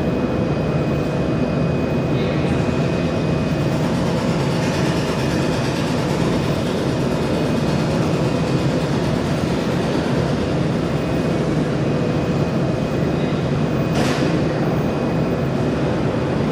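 Steady low machine running noise, continuous and even, with a single sharp click about 14 seconds in.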